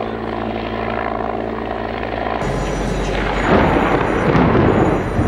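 A steady helicopter drone, engine and rotor, stops about two and a half seconds in. It gives way to the rush of heavy rain, and a rumble of thunder swells a second later.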